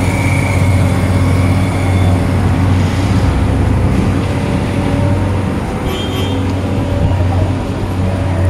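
Slow road traffic at close range: a steady engine drone from vehicles creeping past, among them a motorcycle, a car and a state transport bus. A short high-pitched sound comes about six seconds in.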